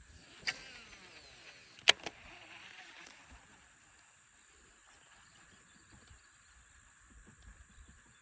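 Fishing reel during a cast: sharp clicks about half a second and two seconds in, with the spool whirring down over the first three seconds. After that, a steady high outdoor hiss.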